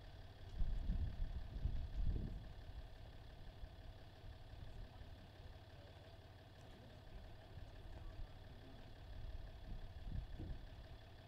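An engine idling steadily, with bursts of low rumble about a second in and again near the end.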